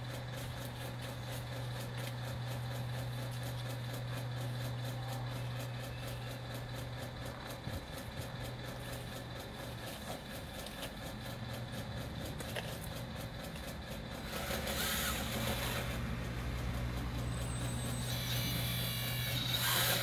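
RC hydraulic bulldozer running: a steady low hum from its motors and hydraulic pump, with louder stretches of mechanical noise about three-quarters of the way through and again near the end.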